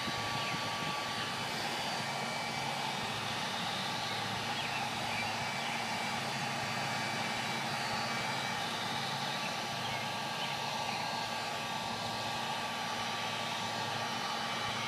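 Electric heat gun blowing steadily, held over canvas to melt a rubbed-in beeswax and linseed oil paste into the fabric.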